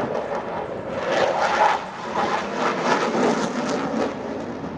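Fighter jet's engine noise in flight, a rushing sound that swells and eases over a few seconds.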